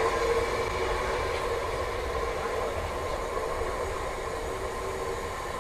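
Freight train of loaded HYA bogie hopper wagons rolling away on the rails: a steady rumble of wheels with a faint ringing note, fading slowly as the train draws away.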